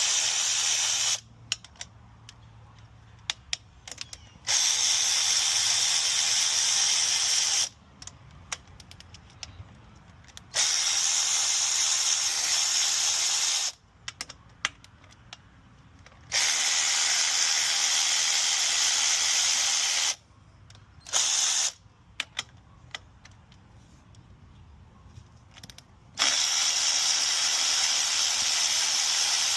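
Power ratchet spinning out the 10 mm bolts of a VQ35DE upper intake plenum. It runs in bursts of about three seconds, five times, with a very short blip in between. The gaps between runs hold faint clicks of the socket and the bolts.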